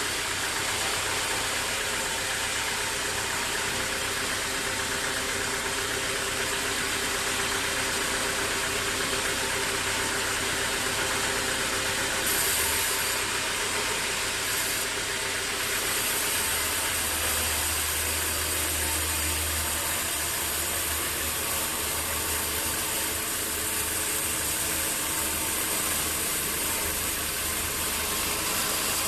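An engine running steadily under a continuous hiss, its low hum swelling for a few seconds midway.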